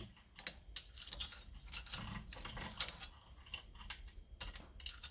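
A saw chain being pulled off a chainsaw bar and handled: a run of light, irregular metallic clicks and rattles from the chain's links.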